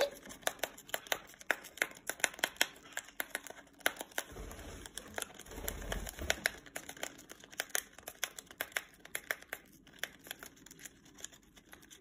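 A small parrot biting and tearing open the top of a paper-and-foil drink-mix packet: dense, rapid crinkling and sharp snipping clicks of the packet material as the strip comes away, with a dull low rumble from handling about halfway through.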